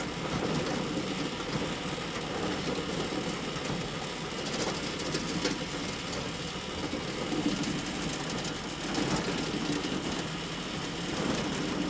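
Hay bale elevator running steadily: its chain conveyor makes a continuous mechanical rattle with faint scattered clicks.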